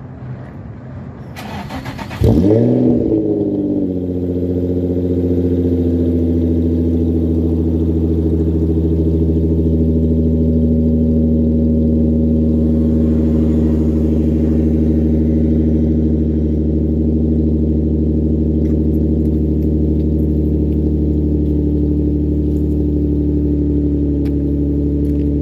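Infiniti G35's 3.5-litre V6 cold-started: a brief crank, then the engine catches about two seconds in with a quick rev flare that rises and falls. It then settles into a steady cold idle.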